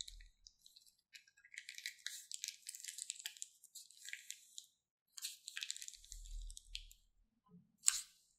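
Slime squeezed out of a plastic piping bag and the emptied bag being handled: soft crackling and clicking in two stretches, with a sharp click near the end.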